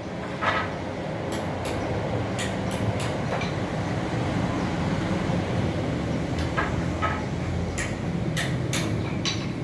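Steady low rumble with short, sharp clicks scattered through it, bunched in the first few seconds and again near the end.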